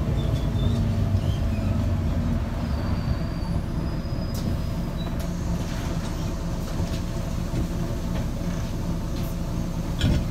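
Volvo B9TL double-decker bus's six-cylinder diesel running steadily on the move, heard from inside the lower deck: a low engine drone with a faint steady whine and a few light rattles, the last and loudest near the end.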